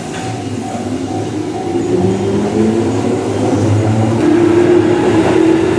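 Electric train on the Tobu Isesaki Line running, with a steady rumble and a motor whine that comes in about two seconds in and rises slowly in pitch as it grows louder.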